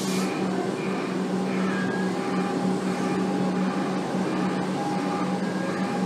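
EDI-refurbished Comeng electric train humming steadily: a low, even drone with a fainter higher whine over it, holding one pitch throughout.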